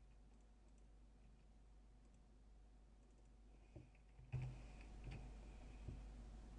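Near silence with a low steady hum, broken by a handful of short computer mouse clicks in the second half. The loudest click comes just as the background hum grows louder.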